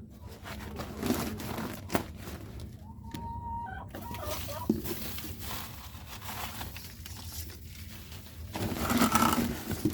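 Domestic chickens clucking, with a short held call about three seconds in and a louder, noisier stretch near the end.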